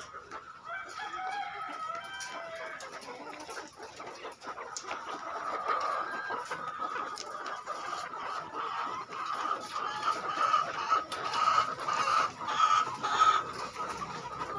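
White Lohmann layer hens in wire battery cages clucking and calling together, a chorus of overlapping calls that grows louder in the second half.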